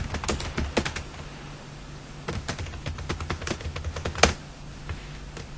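Computer keyboard typing: a quick run of keystrokes, a short pause, then a second run, and a single harder keystroke a little after four seconds in. A faint steady low hum sits underneath.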